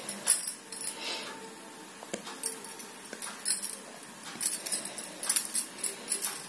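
Irregular soft clicks and small clinks from hands working a white cotton crochet piece with a steel crochet hook, busier near the end.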